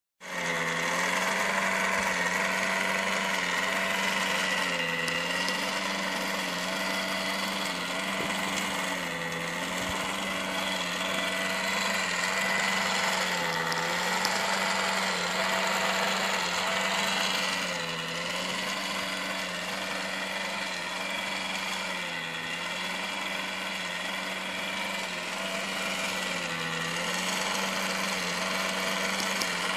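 Dapol Classic TARDIS console toy running: a steady hum whose pitch wavers up and down over and over.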